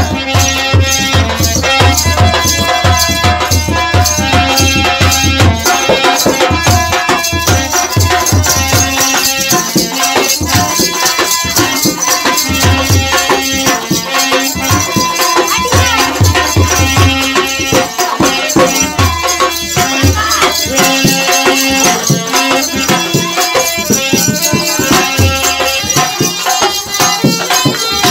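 Indian devotional folk music, a pachra (devi geet), with drums and rattling percussion keeping a steady beat.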